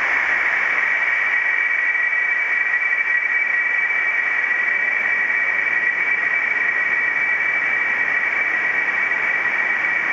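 Eurorack modular synthesizer putting out a steady hiss of noise with a bright, high whistling tone held inside it, like noise through a strongly resonant filter.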